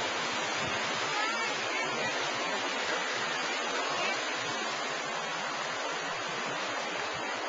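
Wave pool water rushing and churning steadily as waves wash across the shallow pool floor, with a few faint voices of swimmers over it.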